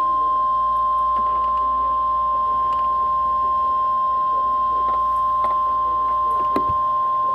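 NOAA Weather Radio warning alarm tone: one loud, steady single-pitch tone at 1050 Hz, heard over the receiver with faint static crackle beneath it. It signals that a warning message is about to be broadcast.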